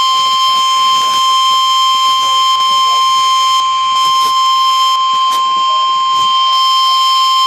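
NOAA Weather Radio warning alarm tone: a loud, steady single tone near 1,050 Hz, held without a break. It is the alert signal that precedes the reading of a new warning.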